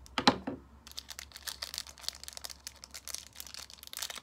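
Candy wrapper crinkling and rustling as it is opened by hand: a dense run of small crackles, with one brief louder sound just after the start.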